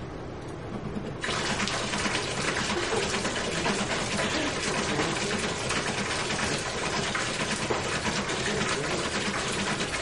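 Water falling from a digital waterfall, a steady rush of splashing drops that starts abruptly about a second in.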